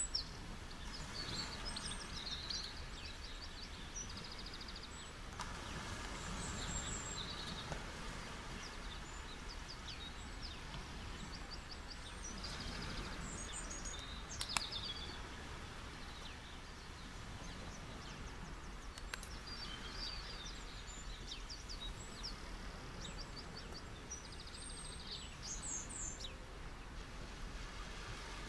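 Gentle ocean waves washing onto a beach in a steady hiss that swells now and then, with small birds chirping in quick trills throughout. There is one sharp click about halfway through.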